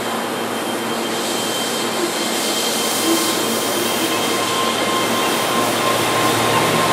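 Keihan 13000-series electric commuter train pulling away from the platform and gathering speed, its running noise growing steadily louder, with thin steady whining tones over it.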